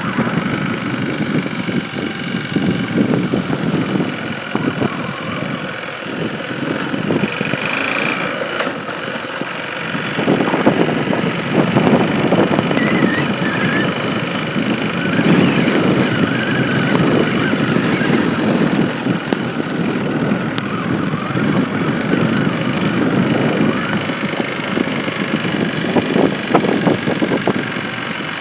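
A motor vehicle engine running continuously, its sound swelling and fading and getting louder about ten seconds in.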